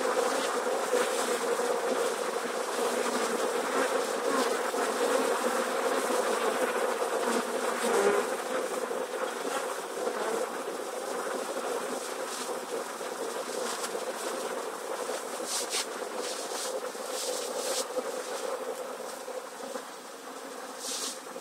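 A swarm of thousands of honey bees buzzing in a steady, dense hum as they crowd and walk into a hive entrance. The hum grows fainter toward the end.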